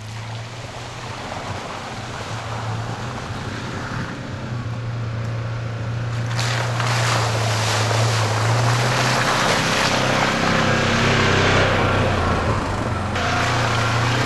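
Polaris Ranger 1000 side-by-side being driven, its twin-cylinder engine giving a steady low hum that grows gradually louder. A broad rush of tyre and wind noise comes in sharply about six seconds in.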